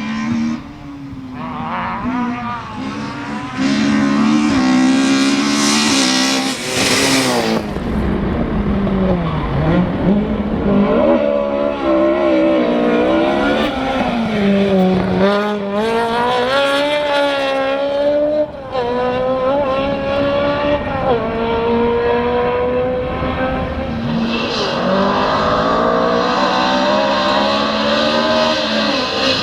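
Ford Escort Mk1/Mk2 rally cars driven flat out. The engines rev hard and rise in pitch, then drop sharply at each gear change, again and again. A spell of loud hissing noise about six to seven seconds in suggests tyres or gravel, with some tyre squeal.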